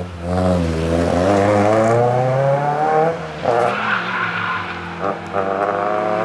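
Skoda Fabia's engine revving hard under acceleration, its pitch climbing for about three seconds, then a brief lift with a short tyre squeal as the car brakes and turns, before the engine pulls again.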